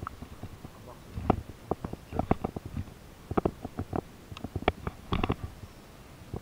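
Handling noise from a baitcasting rod and reel worked by hand close to the microphone: a run of irregular sharp clicks and knocks that comes in clusters.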